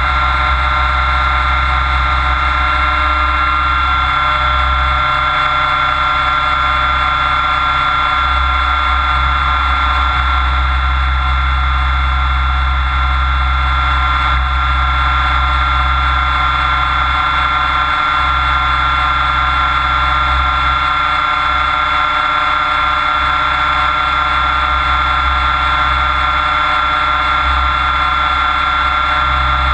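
Logo 600 SX electric RC helicopter in flight, picked up by a camera bolted to its frame: a steady high whine from the motor and gears over a deep rushing of rotor wash and wind that swells and dips.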